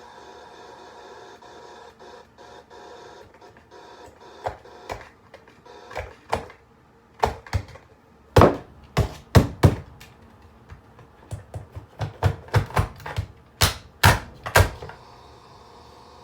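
A steady electrical hum from a plugged-in alarm clock, then a run of irregular sharp clacks and knocks on it, loudest about halfway, which stop shortly before the end.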